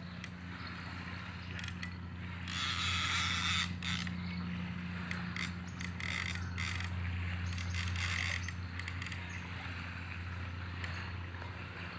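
Fishing reel ratcheting and whirring in uneven bursts as line is worked against a hooked fish, loudest about two and a half seconds in.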